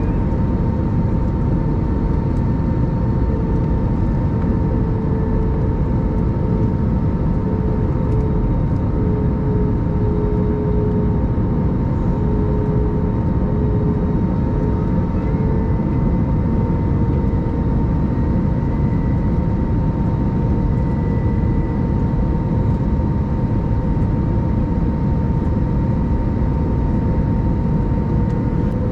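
Airbus A321-200 passenger-cabin noise: a steady low drone of engines and rushing air, with a faint steady whine. It stays unchanged throughout.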